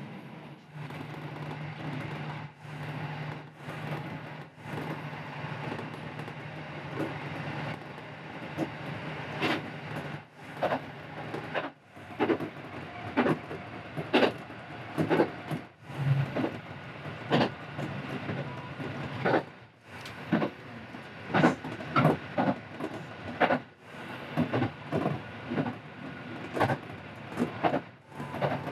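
JR Central KiHa 75 diesel railcar running along the line, heard from inside at the front of the car. A steady running noise with a low engine drone in the first part, and sharp wheel clicks over the rail joints, clickety-clack, that come thicker and louder from about a third of the way in.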